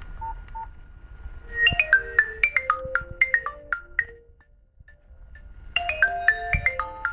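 Nokia 515 mobile phone playing a ringtone through its loudspeaker: a quick marimba-like melody of short bright notes. It stops about four seconds in and starts over near six seconds. Two short beeps come just after the start, before the melody.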